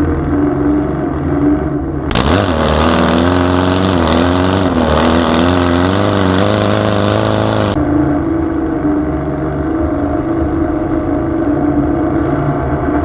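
Air-cooled Volkswagen flat-four engine running, its pitch rising and falling as it is revved. A loud hiss lies over it from about two seconds in until nearly eight seconds in.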